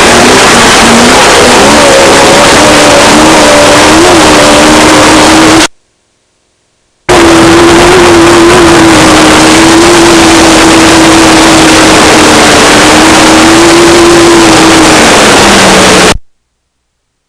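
Off-road race car's engine running hard at a fairly steady pitch, heard from inside the car under a dense rushing noise, very loud throughout. The sound cuts out completely for about a second, twice: about six seconds in and again near the end.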